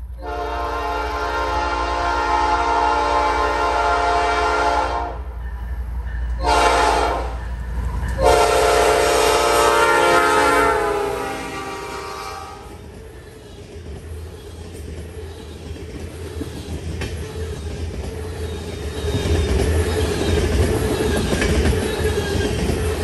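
A freight locomotive's air horn sounds three blasts: long, short, long, its pitch dropping at the end of the last. A string of loaded tank cars then rolls past with a steady wheel rumble and clatter that grows louder near the end.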